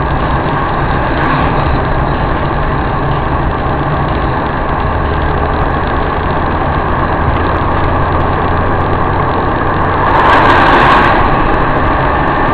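Steady engine and road noise inside a moving car, picked up by a dashcam. About ten seconds in, a louder rush of noise lasts about a second.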